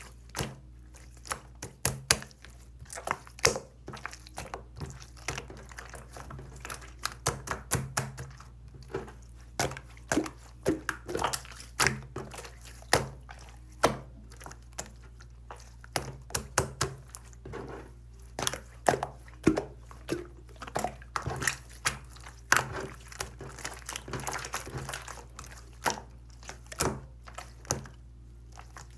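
Slime squished and poked by hand, making irregular wet clicks and small pops, several a second.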